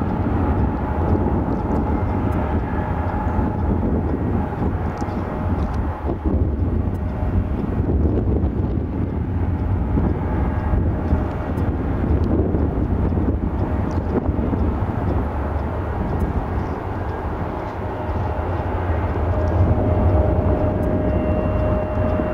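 Strong wind buffeting the microphone over the engines of a twin-engine jet airliner landing and rolling out on the runway. A steady engine whine grows stronger near the end.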